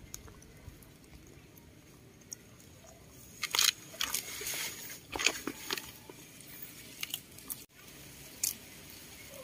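A rabbit and a baby macaque biting and chewing fresh green leaves. The crunching and tearing comes in a few short clusters, the loudest about three and a half seconds in.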